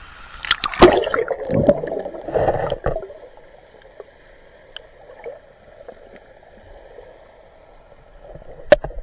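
Water splashing and sloshing, loudest in the first three seconds. Sharp knocks come about half a second to a second in and once more near the end.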